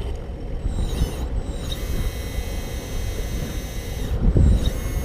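Small electric motors of a homemade RC backhoe loader whining, the high whine bending up and down in pitch about a second in and again near the end, over a steady low rumble of wind on the microphone.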